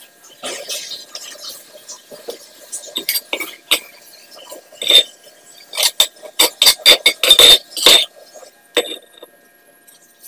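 A metal spatula scraping and knocking against a stone mortar as ground spice paste is scooped out: a run of sharp clinks and knocks, densest between about three and eight seconds in.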